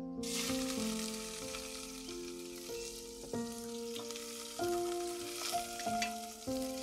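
Steady hiss and bubbling of a steel pot of water on the boil over a wood fire, with a few clicks of wooden chopsticks against the pot as the soup is stirred. Soft instrumental music plays underneath.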